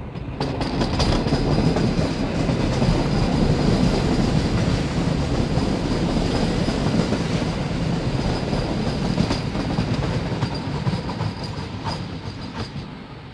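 PKP class EN57 electric multiple unit running past on the rails right below, its wheels clacking over the rail joints under a heavy rumble, with a steady high whine above it. The noise fades near the end as the train pulls away.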